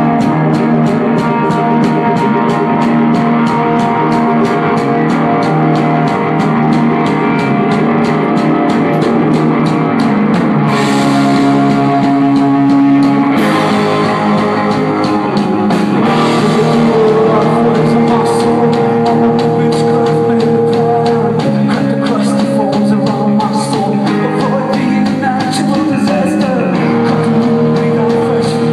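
Live rock band playing with electric guitars, keyboard and drum kit. A steady fast tick of about four beats a second runs through the first ten seconds or so, after which the arrangement shifts to longer held notes.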